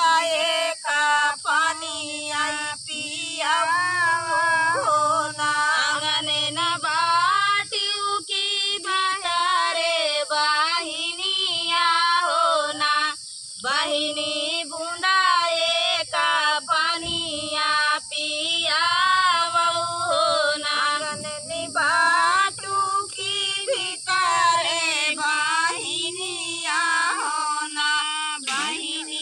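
Women singing a village folk song, a dhaan ropai (rice-transplanting) kajari, the melody bending and sliding between held notes with short breaths between lines.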